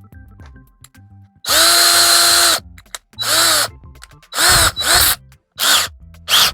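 Power drill turning a titanium step drill bit into a pilot hole in sheet metal in short trigger bursts: six spurts of motor whine, the first about a second long and the rest shorter, each rising in pitch as the motor spins up and falling as it slows.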